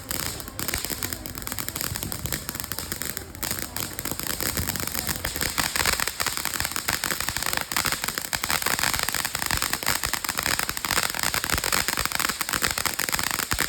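Consumer firework going off, a dense, continuous crackle of many tiny pops that grows a little louder about halfway through.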